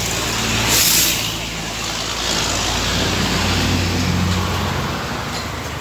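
Road traffic passing close by: vehicle engines running with a steady low hum and an even rush of noise, with a short hiss about a second in.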